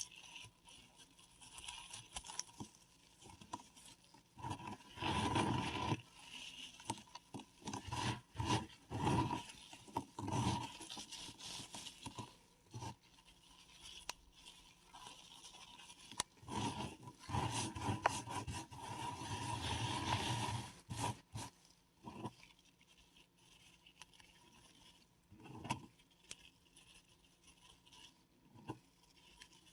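Paradichlorobenzene mothball being crushed and rubbed by hand: gritty scraping and crunching in irregular bursts, loudest about five seconds in and again from about sixteen to twenty-one seconds in, with sparse crackles in between.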